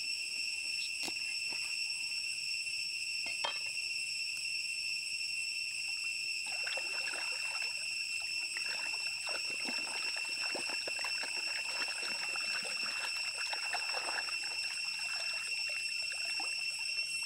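Water splashing and sloshing as a hand rinses a piece of raw crocodile meat in shallow stream water, starting about six seconds in. Throughout, insects drone with a high, even whine.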